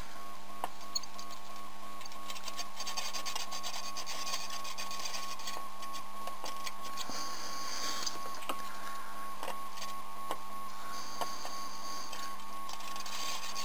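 Steady electrical hum and whine of a board preheating station, with a few short stretches of high hiss and faint ticks as a soldering iron is dragged along the chip's pins.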